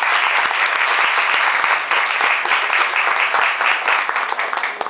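Audience applauding steadily, the dense clapping stopping at the very end.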